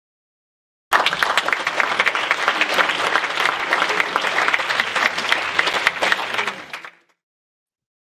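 Audience applause: many hands clapping, starting abruptly about a second in and fading out near the end.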